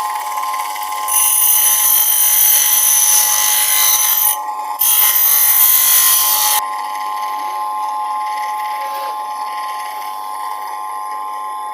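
Home-built blade-grinding machine's motor running with a steady whine. About a second in, a planer blade is pressed to the grinder in two passes of a few seconds each, with a short break between, adding a loud harsh hiss.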